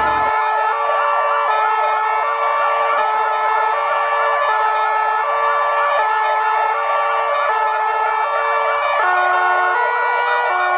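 Several ambulance sirens sounding together: a two-tone siren switching between high and low about twice a second over a fast rising-and-falling wail, with another, lower two-tone siren joining near the end. They are sounded as a farewell salute to a dead paramedic.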